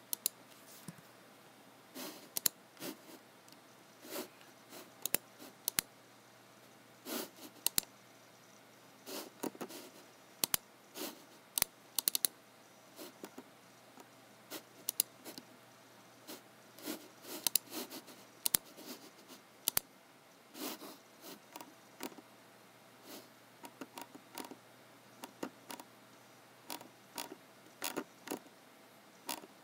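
Computer mouse and keyboard in use: irregular sharp clicks and taps, a few in quick pairs, with short scraping sounds between them.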